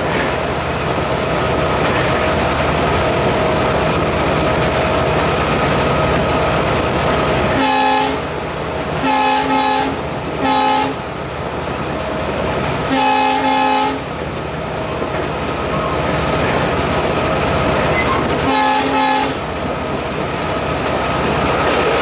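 WDP4B (EMD GT46PACe) diesel-electric locomotive running at speed, heard from inside the cab, with its steady engine and rail noise. Its horn sounds in a run of short blasts about eight to eleven seconds in, a longer blast around thirteen seconds, and another blast near the end.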